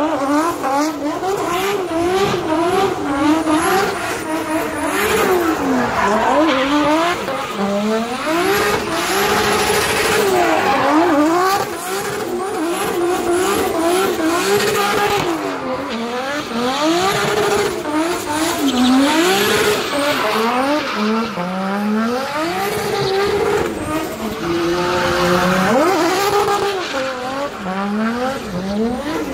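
Drift car sliding through continuous donuts: its engine revs rise and fall again and again, about once a second, as the throttle is worked, over steady tyre screech from the spinning rear wheels.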